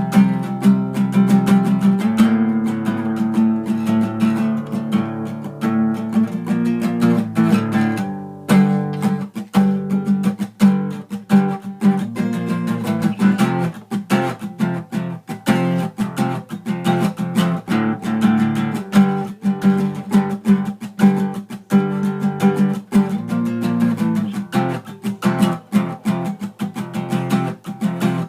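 Acoustic guitar music: a fast, busy run of plucked and strummed notes, with a brief pause about eight seconds in.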